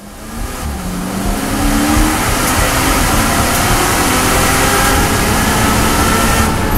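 BMW M240i Racing Cup car's turbocharged straight-six, heard from inside the cockpit, at full throttle and shifting up from second to fifth gear. The engine grows louder over the first second, then runs steady and loud.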